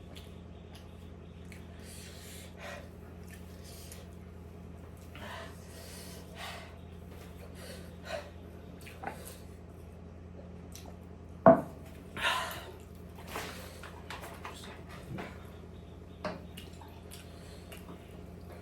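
Close-miked eating sounds: wet chewing and lip smacks at irregular intervals. About two-thirds of the way through comes one sharp loud clink of tableware. A steady low hum runs underneath.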